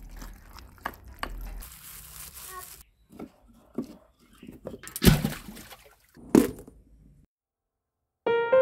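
Short scrapes and clicks of a spoon in a bowl of halwa, then two sharp knocks about five and six and a half seconds in from a hand working firewood in a clay stove's firebox. After about a second of quiet, soft piano music begins near the end.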